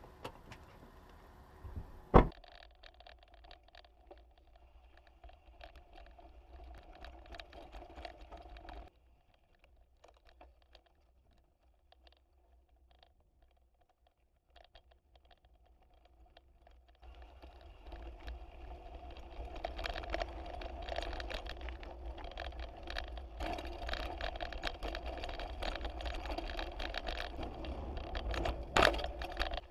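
Mountain bike rolling over a rough dirt trail, heard through a handlebar-mounted camera: the bike rattles and clicks with tyre noise. There is a sharp knock about two seconds in, a near-silent stretch of several seconds in the middle, and another sharp knock near the end as the front tyre runs onto a wooden plank bridge.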